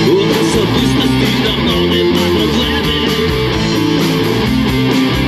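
A rock band playing, with electric guitars to the fore.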